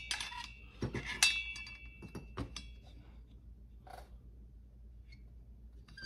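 Metal clinks and taps as a dial bore gauge's probe is set into a chainsaw cylinder's bore, about five in the first two and a half seconds, one of them ringing briefly; then only faint handling noise.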